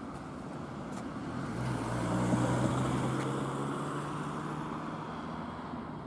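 A motor vehicle passing on the road: a steady engine hum and tyre noise that grow louder, peak about halfway through, and fade away.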